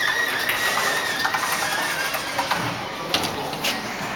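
Otis Series 1 elevator machinery running with a high whine that slides slightly in pitch and fades out about two seconds in, followed by a couple of sharp mechanical clicks.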